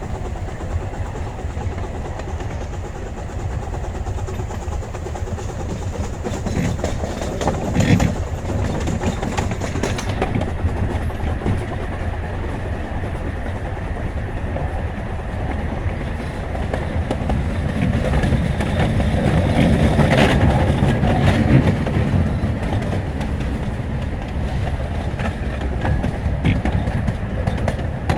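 Small-gauge steam-hauled train rolling along its track, with a steady rumble and the clickety-clack of wheels over rail joints, growing louder about two-thirds of the way through.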